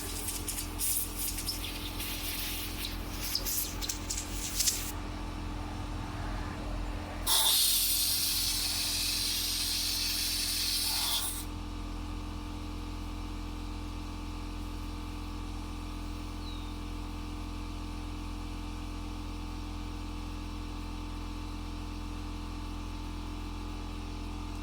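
A burst of spray hissing that starts and stops abruptly and lasts about four seconds, after a few seconds of clattering handling noise. A steady electrical hum runs underneath.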